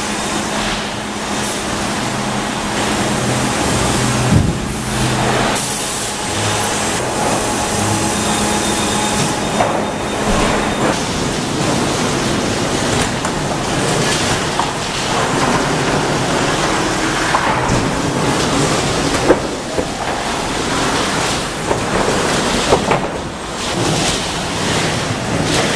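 Sawmill lumber-handling machinery running: chain conveyors and roll cases carrying boards, with a steady hum for the first ten seconds or so and boards knocking and clattering now and then.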